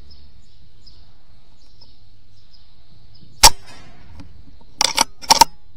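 A single sharp air rifle shot about three and a half seconds in, the loudest thing here, striking a jackdaw, followed about a second and a half later by a quick run of sharp clicks.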